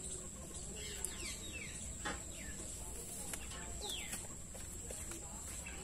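Birds giving short, downward-sliding chirps, with hens clucking, and a couple of light clicks about one and two seconds in.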